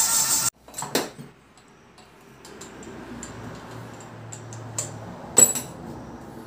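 Electric drill spinning a valve against its seat in grinding paste, lapping it into an old Royal Enfield Bullet cylinder head to cure a compression leak. The drill cuts off suddenly about half a second in, followed by light metal clicks and ticks as the drill is unhooked from the valve stem and a loud metal clank about five seconds in.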